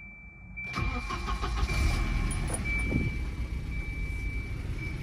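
A 1993 Volvo 240's four-cylinder petrol engine starting up a little under a second in, then running at a steady idle.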